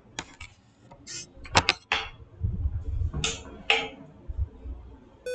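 Handling noise at a desk: a run of short, sharp clicks and light taps, with a low thud or rumble about two and a half seconds in.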